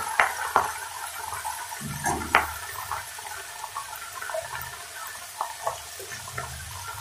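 Pan of poi saag and potatoes sizzling softly, with a few light clicks and knocks.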